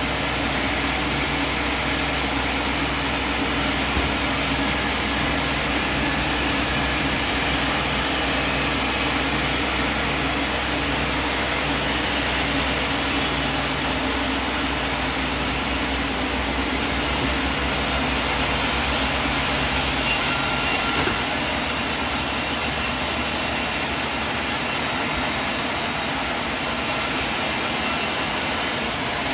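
Sawmill machinery running with a steady mechanical noise. About twelve seconds in, a strong high hiss joins it, and the noise grows slightly louder in the second half.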